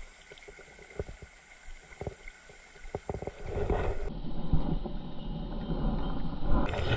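A few sharp knocks, then from about three seconds in a dense rough wash of stream water and wind on the action camera's microphone as a hooked ayu is played on a bent rod and splashes out of the water.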